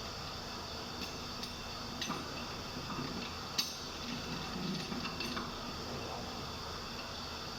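Scattered light clicks and knocks over a steady low hum, the sharpest click about three and a half seconds in.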